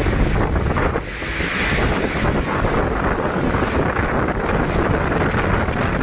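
Strong wind blowing hard across the microphone, a loud, steady rush of wind noise.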